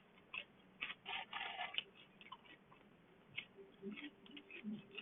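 Close-up chewing and crunching of a fried chicken sandwich, in short irregular bites with pauses between them.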